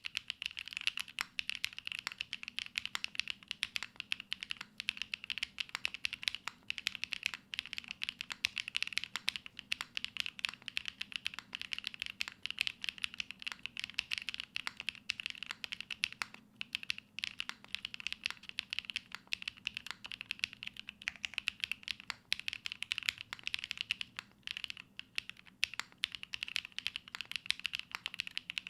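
Continuous fast typing on a Matrix Lab Magic3 80% mechanical keyboard with Sarokeys Strawberry Wine switches, GMK Hazakura keycaps and a full aluminium plate, with no foam inside. A rapid run of keystroke clicks, with short pauses about halfway through and again near the end.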